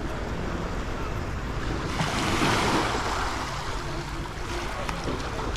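Sea waves washing onto a sandy beach, one wave surging louder about two seconds in, over a low rumble of wind.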